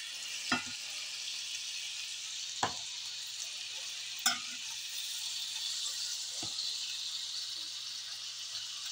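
Shrimp, onion and chicken sizzling in a cast-iron skillet: a steady frying hiss, with a few short clicks scattered through it.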